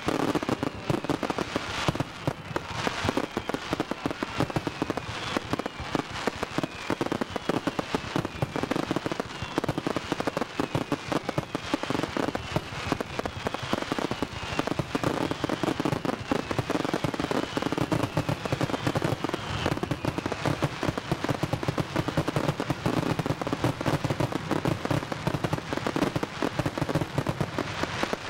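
Fireworks display in a dense barrage: overlapping bangs and crackling keep going without a break, with a run of whistles that each fall in pitch.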